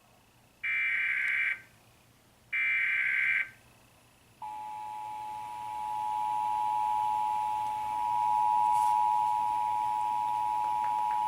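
Emergency Alert System monthly test signal: two roughly one-second bursts of SAME header data tones, then, about four and a half seconds in, the steady two-tone EAS attention signal begins and holds.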